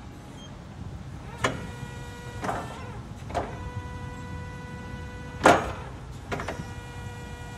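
Komatsu FE30-1 electric forklift's motor whining at a steady pitch in several stretches, with a clunk as each stretch starts; the loudest clunk comes about five and a half seconds in.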